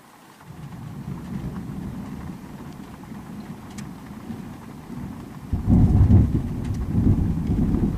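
Thunder rumbling: a low rumble rises about half a second in, then swells much louder about five and a half seconds in and keeps rolling.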